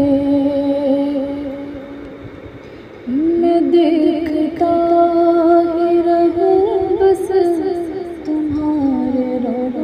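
A woman's voice singing a naat in long, drawn-out notes with ornamented turns in the pitch. The voice fades down over the first couple of seconds, and a new long note comes in about three seconds in.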